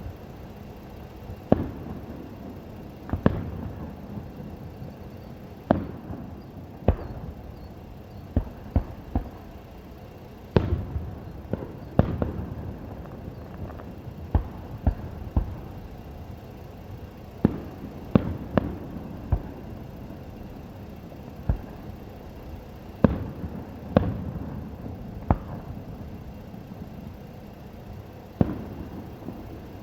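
Fireworks shells bursting overhead: a string of sharp bangs at uneven intervals, some in quick clusters, each trailing off in a low rumbling echo.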